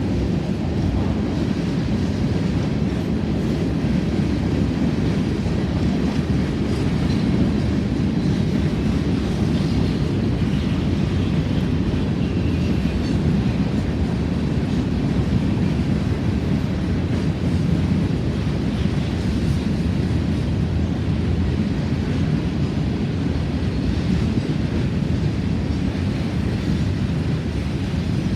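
Freight train cars rolling past, a steady rumble of steel wheels on rail.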